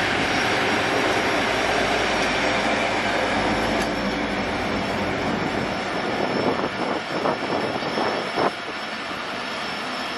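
HGMU-30R diesel-electric locomotive, powered by an EMD diesel engine, running past at speed, followed by its passenger coaches rolling by. Over the second half the wheels clatter over the rail joints, and the sound eases off near the end.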